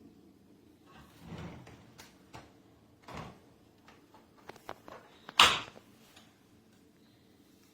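Several scattered knocks and clicks, with one sharp, louder click about five and a half seconds in.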